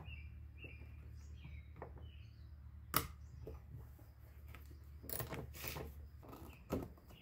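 Scattered clicks and rustling of a ratchet and socket being fitted to and worked on a mirror mounting nut inside a car door, with one sharp click about three seconds in, over a steady low hum that stops near the end.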